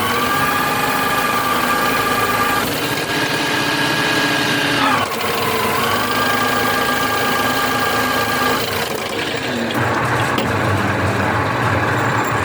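Engine of a farm machine working a field, running at a steady high pitch that dips briefly about five seconds in, as under load, and recovers, then drops to a lower, rougher note about nine seconds in.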